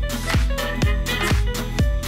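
Background music with a steady dance beat, about two beats a second.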